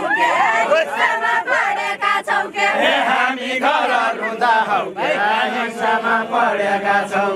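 A group of men and women singing a far-western Nepali folk song in chorus, for the nyaulya khel song-dance, with many voices overlapping on a steady held tune.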